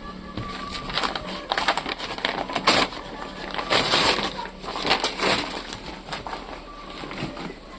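Cardboard box and plastic packaging being handled and opened: irregular crinkling, rustling and scattered clicks, with louder crackles about three, four and five seconds in.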